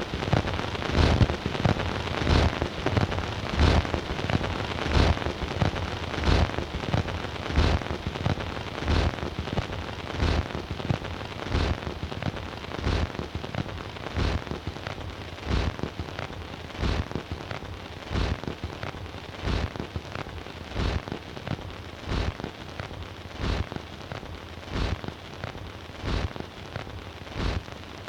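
Stylus running in the lead-in groove of a 78 rpm record on a Bush record player: continuous surface crackle and hiss, with a louder click recurring regularly about every second and a quarter as the same groove damage comes round.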